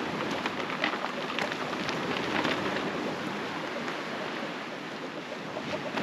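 Steady storm noise of wind and rain, with scattered sharp ticks and taps throughout.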